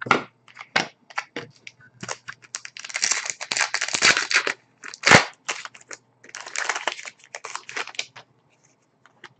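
Trading-card packaging and cards being handled: crinkling and rustling in two stretches, with many small clicks and one sharper knock about five seconds in.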